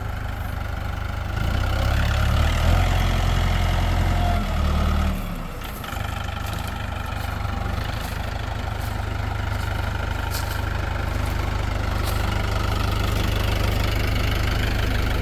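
Tractor engine running, its sound rising and growing louder for a few seconds under load while the loader pushes, then dipping briefly before it settles back to a steady run.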